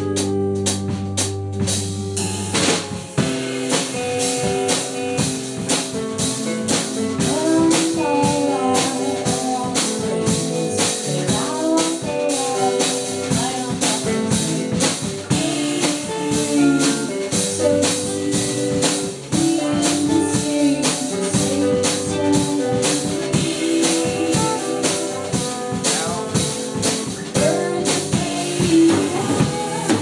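A small band rehearsing a song: violin and clarinet lines over guitar and a drum kit. A held chord rings for the first couple of seconds, then the drums come in with a steady beat about two and a half seconds in.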